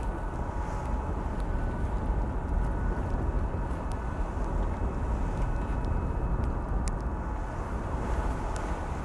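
Steady low rumble of wind and a motoring sailing schooner's engine on deck, with a faint thin machine whine and a few light clicks.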